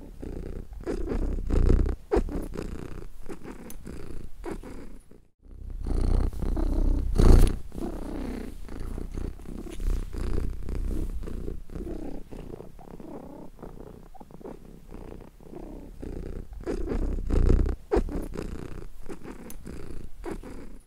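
Domestic cat purring: a fast rumbling pulse that swells and eases with each breath, with a brief break about five seconds in.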